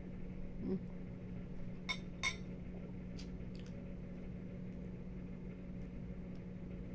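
A metal spoon clinks twice against a ceramic bowl about two seconds in, over a steady low hum.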